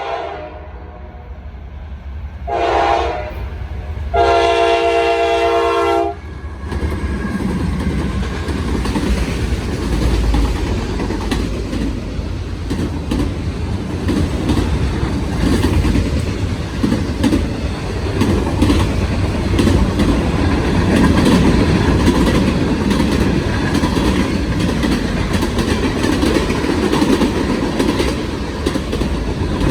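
Diesel freight train's air horn at a grade crossing: a short blast, then a long blast ending about 6 s in, the close of the crossing signal. The train then runs past at speed, with the locomotives' steady rumble and the wheels clattering over the rails.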